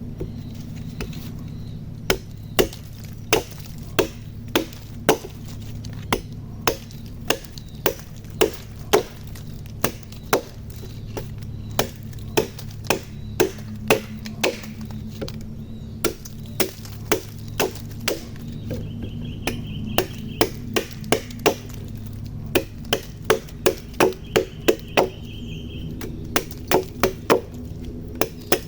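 Wood being chopped with a tool in repeated sharp strokes, about one and a half a second, in runs broken by short pauses, over a steady low hum.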